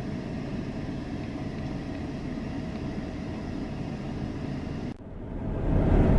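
Steady running noise of a car, then a sudden break about five seconds in, after which a louder, low road rumble of the moving car builds.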